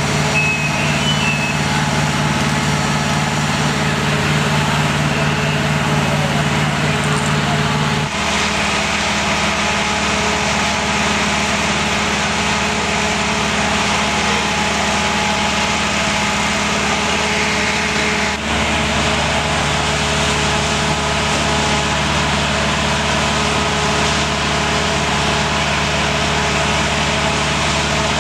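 Fire truck's diesel engine running steadily at the fire scene. Its note shifts abruptly about 8 seconds in and again about 18 seconds in.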